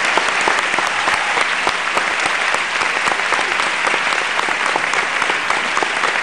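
A large audience applauding: steady, dense clapping of many hands, keeping an even level throughout.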